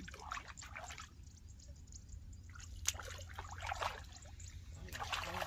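Hooked tilapia splashing and thrashing at the surface of a pond while it is played on a pole rod, in irregular small splashes that bunch up about halfway through and again near the end.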